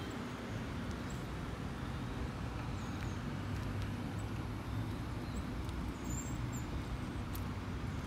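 Steady rolling and wind noise of a bicycle being ridden, with a low hum underneath. A few faint bird chirps come through about three seconds in and again near the end.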